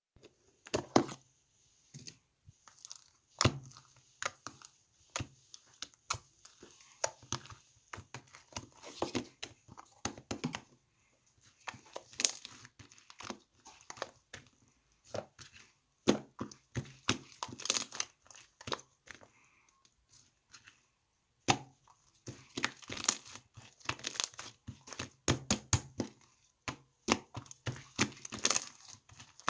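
Irregular clicks, crackles and crinkling of something being handled, coming in clusters with two short pauses, about a third and two-thirds of the way through.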